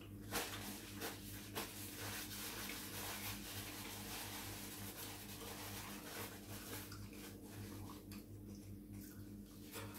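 Soft rustling and crinkling of a paper towel being handled and folded, with a few light clicks in the first couple of seconds, over a steady low hum.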